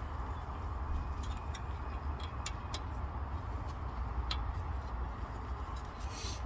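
Sharp metallic clicks of a ring spanner on the upper nut of a new front stabiliser (drop) link as the nut is tightened by hand, about half a dozen clinks spread unevenly through the stretch. A steady low rumble runs underneath.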